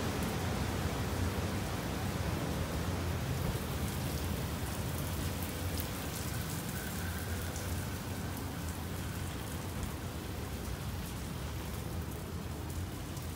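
Water spraying and spinning wash brushes working in an express car wash tunnel: a steady rushing hiss with scattered patters of drops and a low hum underneath.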